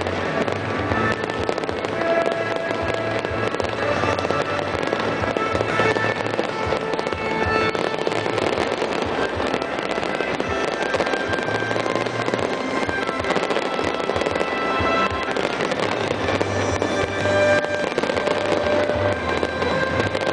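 A fireworks display going off without a break: a dense, continuous mix of bursts and crackling, with music playing along underneath.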